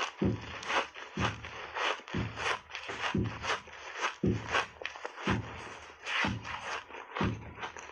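Close-miked crunching and chewing of a frozen foam ice bar coated in milk powder, a steady run of crunches about two to three a second with duller thuds about once a second.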